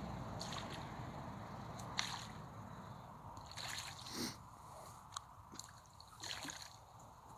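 Hooked pike splashing at the water's surface as it is reeled in to the bank: a few short, faint splashes and sloshes.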